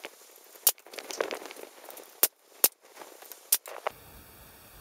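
Brad nailer firing brads into wooden trim: four sharp snaps spread over about three seconds, with handling noise between them.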